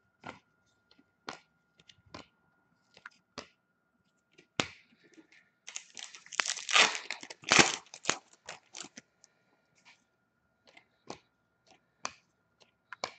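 A foil trading-card pack wrapper being torn open: a ripping burst in the middle, the loudest sound, among scattered short clicks and snaps of cards being handled.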